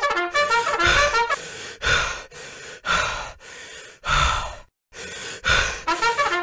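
Comic brass music for about the first second, then a few loud, heavy panting breaths about a second apart: someone badly out of breath after running.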